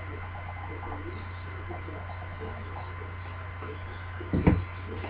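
Steady low electrical hum with faint voices in the background, broken by a single thump about four and a half seconds in.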